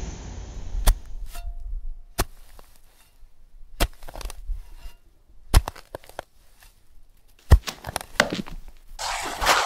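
Pickaxe striking rock: sharp single blows about every one and a half to two seconds, five loud ones with smaller knocks between, then a short gravelly rattle near the end.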